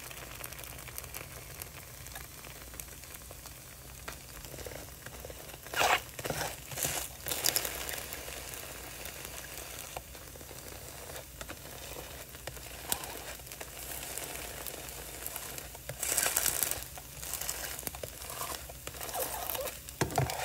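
Spinach wrap batter cooking in an oiled frying pan, a low steady sizzle, with a few brief louder handling noises about six seconds in, again a second later, and around sixteen seconds in.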